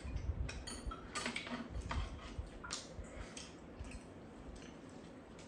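People eating at a table: chewing and mouth sounds, with a series of light clicks of spoons and chopsticks against bowls and a pan, most of them in the first three seconds.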